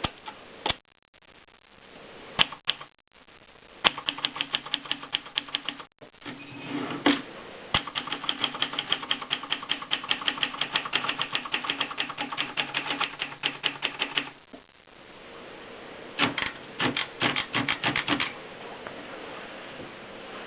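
Adler Tippa portable manual typewriter being typed on: a few single key strikes, then a long fast run of clacking keystrokes at several a second, a short pause, and a second shorter burst.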